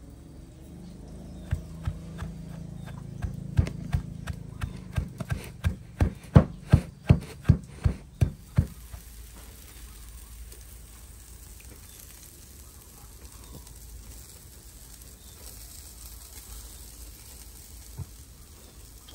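Wooden pestle pounding spice paste in a wooden mortar: two thuds, then a steady run of strokes about three a second that stops about nine seconds in. After that, pork ribs sizzling faintly on a charcoal grill, with a single click near the end.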